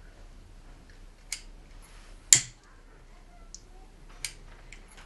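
Disposable lighter being flicked by thumb: three sharp clicks, the middle one the loudest.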